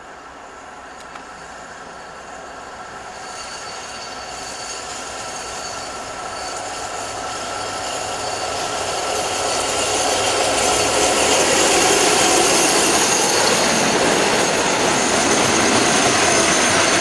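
Class 56 diesel-electric locomotive, with its Ruston Paxman 16-cylinder engine, approaching and passing close by at the head of a coal train, growing steadily louder over about ten seconds and then staying loud. Engine note mixes with the rumble of wheels on the rails and thin high whining tones.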